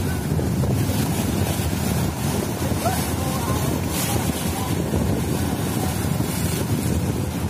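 Strong wind rumbling on the microphone over a rough sea, with waves surging and breaking against the rocks of a stone breakwater.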